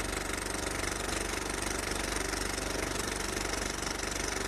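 End-card sound effect: a steady, dense drone with a fast low pulse under it, like an engine idling.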